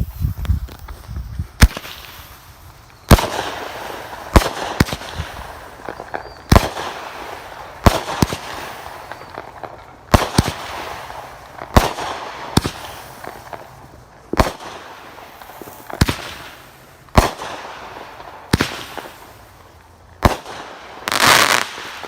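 Phantom Fireworks 'Enchanted Forest' nine-shot firework cake firing: a string of sharp bangs every one to two seconds, each trailed by a crackling hiss, with a longer crackling spell near the end.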